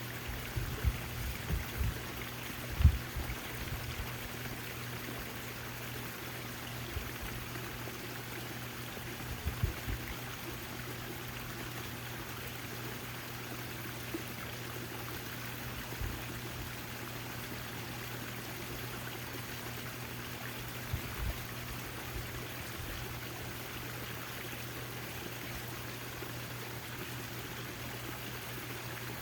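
Backyard fountain water splashing and trickling steadily, with a steady low hum beneath it. A few brief low thumps come in the first few seconds, the loudest about three seconds in, and again around ten and twenty-one seconds in.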